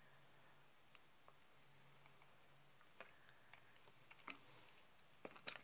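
A few faint, sharp clicks scattered over quiet room tone, the clearest about a second in and two close together near the end.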